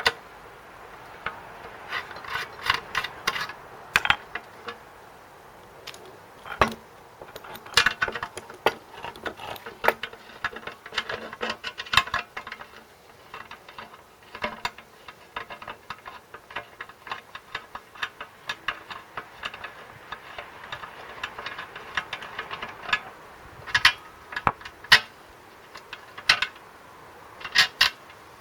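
Irregular metallic clicks, knocks and rattles of hand tools working on a small engine, with short runs of quick ratcheting clicks.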